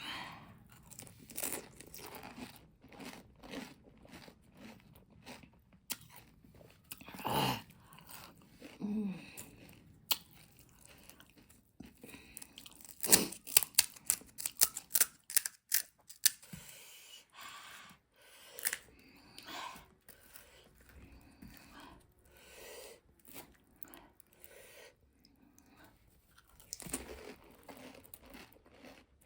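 Chewing and crunching of pani puri: crisp puri shells cracking between the teeth in irregular bites, with a quick run of sharp crunches about halfway through.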